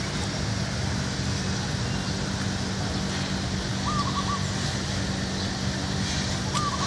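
Outdoor garden ambience: a steady low hum under a faint high hiss, with a bird giving a short warbled call twice, about four seconds in and again near the end.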